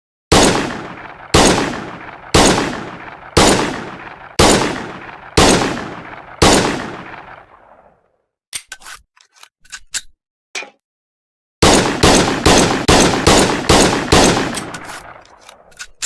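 M1911 pistol gunshots: seven single shots about a second apart, each with a long echoing tail, then a few light clicks, then a rapid string of about ten shots at roughly three a second.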